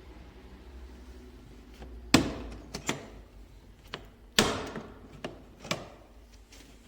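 A series of knocks and clicks, as of a hard object being handled: two loud clunks about two seconds and four and a half seconds in, with lighter clicks between and after.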